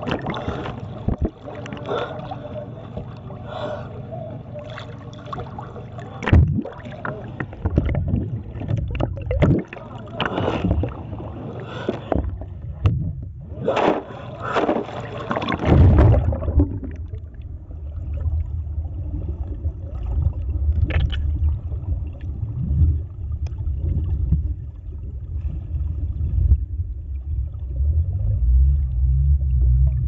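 Sea water splashing and slapping against a camera held at the wave surface. About halfway through it turns into a muffled low underwater rumble as the camera goes under.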